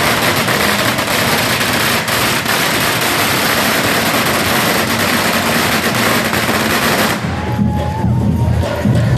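A string of firecrackers going off in a dense, rapid crackle of sharp cracks, stopping abruptly about seven seconds in.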